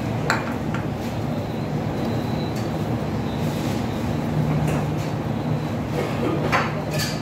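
A steady low hum, with a few brief rustles and clicks from plates and the plastic table cover as people eat rice by hand, one near the start and two near the end.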